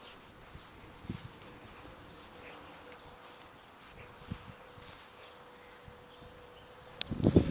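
A faint steady buzzing hum with a few scattered soft clicks, then a burst of loud knocks about seven seconds in.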